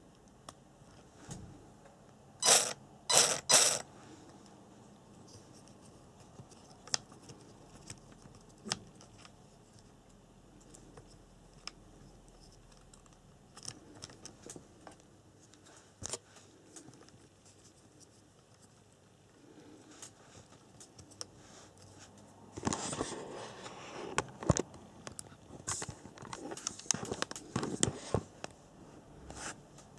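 Hands handling an RC car's ESC wiring and bullet connectors: scattered small clicks and ticks, three loud short scrapes about three seconds in, and a longer spell of rubbing, scraping and clicking in the last several seconds.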